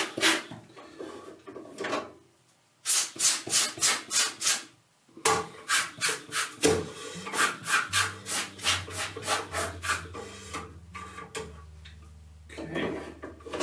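Quick, rhythmic rasping strokes, about four a second, in two runs from hand work at a darkroom enlarger. A low steady hum comes in about eight seconds in.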